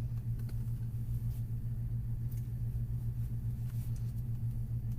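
A steady low hum under a few faint, light clicks of plastic as a laptop's screen bezel is pried off its clips.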